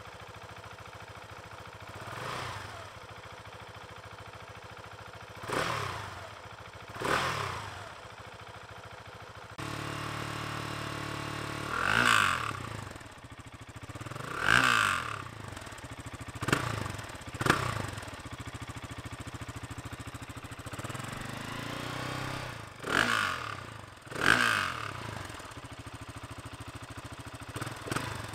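Husqvarna 701 Enduro's single-cylinder four-stroke engine through its stock muffler, idling and blipped repeatedly: about eight quick throttle blips, each revving up and falling back to idle.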